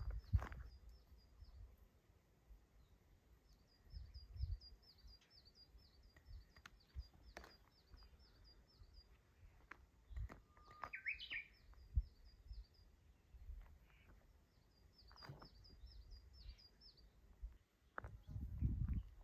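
Small songbirds singing: several runs of quick, high, repeated chirps a few seconds apart, with one louder rising call about eleven seconds in. Occasional low thumps and rumbles come and go underneath.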